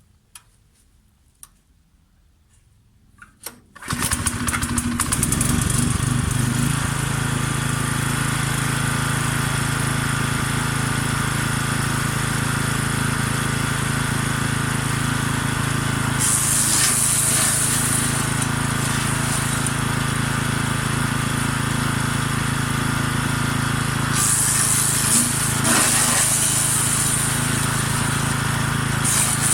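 Forest Master FM6DD 6 hp petrol wood chipper starting about four seconds in and then running steadily. Twice, for about three seconds each, a harsher hissing noise rises over the engine as elder cuttings are fed through and shredded.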